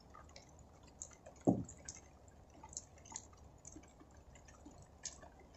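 Rainwater dripping in faint, irregular drops, with one louder, lower-pitched drop sound about a second and a half in.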